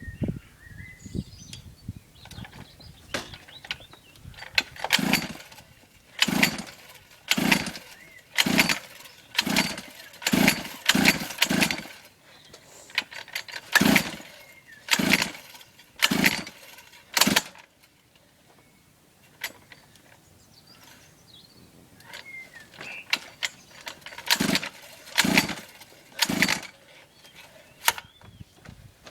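Orion mini dirt bike's small engine being pull-started over and over, each recoil pull a short spinning burst, about a dozen pulls in a quick run, a pause, then a few more; the engine never catches, so it won't start.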